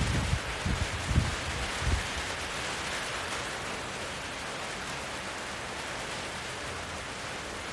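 Steady rain falling, an even hiss, with four short low thumps in the first two seconds.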